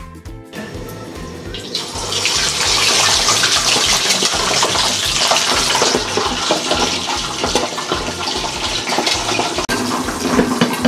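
Hot oil sizzling and spattering loudly as a boiled pork leg fries in a lidded pan for crispy pata, building up over the first two seconds. Background music with a steady beat plays underneath.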